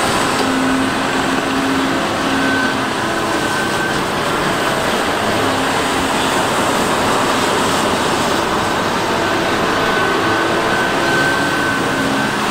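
Cat 395 hydraulic excavator running steadily, its engine and hydraulics making a dense, even noise with a high whine that comes in near the start and again toward the end.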